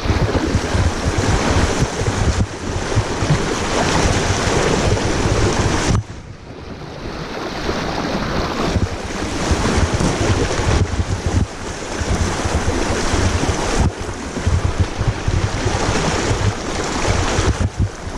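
Wind buffeting the microphone over the rush of fast-moving river water, with sudden dips about six seconds in and again near fourteen seconds.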